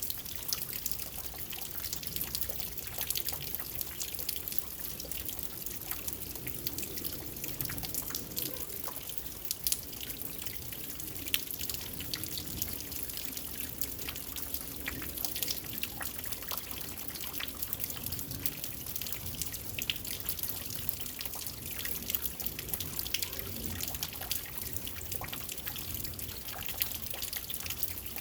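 Steady night rain falling, with many separate drop hits ticking over a continuous hiss and a low rumble.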